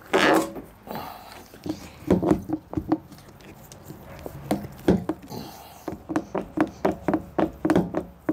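PVC drain pipe creaking in a rubber Uniseal as it is wiggled back and forth to seat it through the tank wall. A run of short creaks that come faster toward the end, about three a second.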